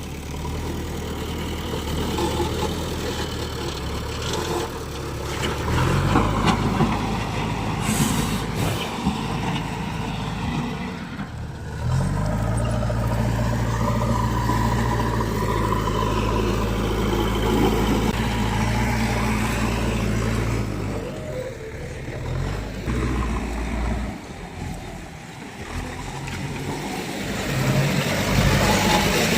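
Heavy diesel engine running under changing load, its revs stepping up about six seconds in and again about twelve seconds in, then dropping back; a brief sharp noise about eight seconds in.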